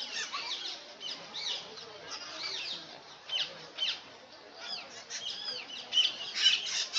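Parrots calling: a dense stream of overlapping short whistles and chirps that glide up and down in pitch, with louder, harsher calls near the end.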